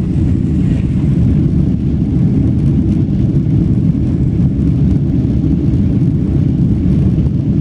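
Boeing 767-300ER's jet engines and the rolling rumble of the airliner on the runway, heard from inside the passenger cabin. It is a steady, loud, low noise with no clear rise or fall.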